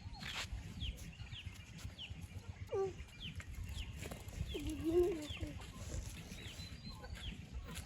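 Chickens: chicks peeping over and over, short high notes that fall in pitch about twice a second, with one lower, longer call about five seconds in.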